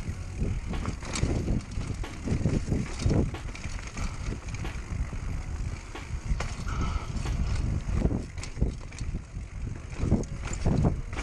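Downhill mountain bike rattling down a rough dirt trail: tyres rumbling over the ground, with frequent irregular knocks and clattering from the bike as it jolts over bumps.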